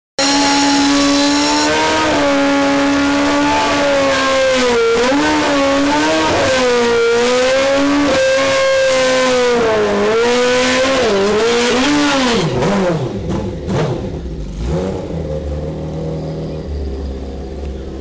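Sport motorcycle engine held at high revs, its pitch wavering up and down, as in a drag-strip burnout. About twelve seconds in the revs fall away and the engine runs on lower and quieter with a few blips of the throttle.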